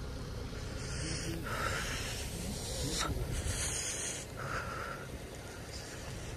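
Wind buffeting the microphone as a steady low rumble, with several short hissing rushes on top of it.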